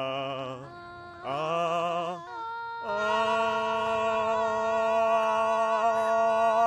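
A woman singing unaccompanied, matching pitch: two short notes with a wide vibrato, then, about three seconds in, one long steady held note.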